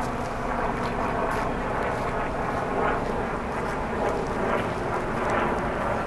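Steady outdoor background noise, a broad even rumble with a faint hum underneath and no clear single event.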